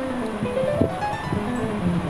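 Background music with a plucked-string melody. A short knock a little under a second in, from the wooden spatula against the pan as it stirs.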